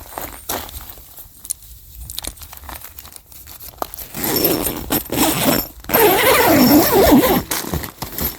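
Tent nylon and a plastic tarp being handled: scattered rustles and clicks at first, then louder, continuous rustling and crinkling from about halfway in.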